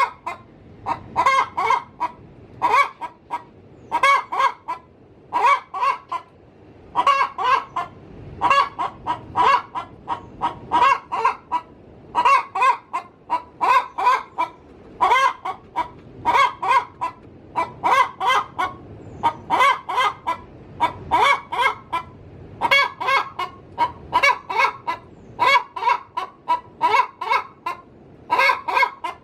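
Domestic hen cackling on and on, in quick runs of short clucking notes repeated about once a second. This is the cackle a hen gives around laying, here when she is about to lay in her coop.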